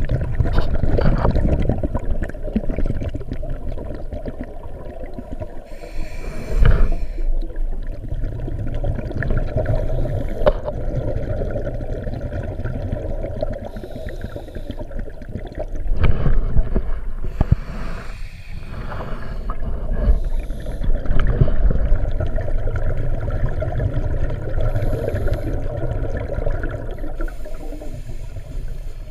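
Muffled underwater rumble from a scuba diver's regulator breathing and exhaled bubbles, swelling in surges every few seconds.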